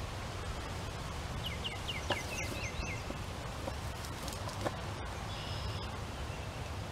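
Outdoor field ambience: a steady low rumble, with a small songbird singing a quick run of about eight short descending chirps about a second and a half in and a shorter chirping phrase near the end. A few faint knocks come from handling at the fence post's base.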